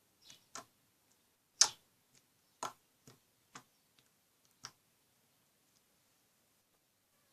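A series of short sharp clicks at irregular intervals, about seven in all, the loudest about a second and a half in.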